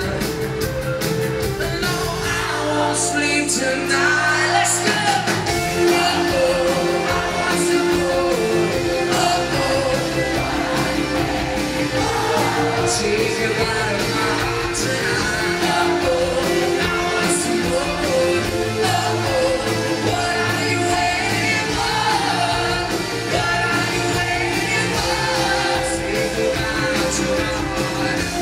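Live rock band playing with vocals, electric guitars, bass and drums, heard from within the crowd in a large hall.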